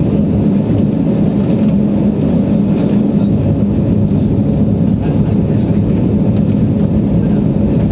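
Steady low drone of airliner noise heard inside the passenger cabin: engines and rushing air, with a few steady low hums held throughout.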